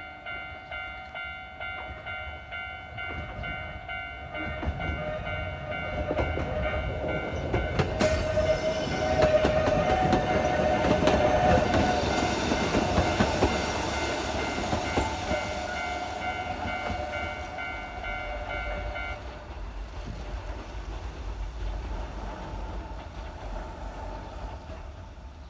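A narrow-gauge (762 mm) Yokkaichi Asunarou Railway electric train with nose-suspended traction motors approaching, passing close by with wheel noise, then fading as it pulls away. Underneath, a steady repeating ringing tone stops abruptly shortly after the train has passed.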